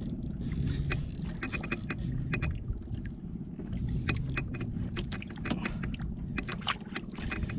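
Steady low rumble of wind and sea water around a small outrigger boat, with scattered sharp clicks in small clusters from a fishing reel and rod being worked in fast vertical jigging.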